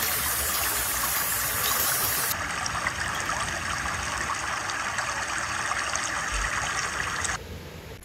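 Waterfall rushing steadily, an even wash of falling water. Its hiss thins about two seconds in, and it cuts off abruptly about a second before the end.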